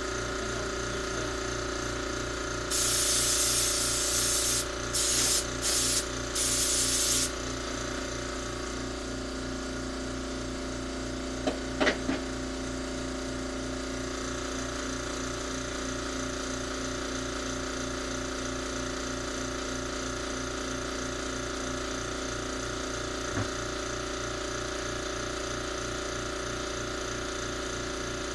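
Compressed air from an air blower hissing in four short blasts, about three seconds in, as carburetor passages are blown out. Underneath runs a steady low mechanical drone, and a couple of sharp knocks come about halfway through.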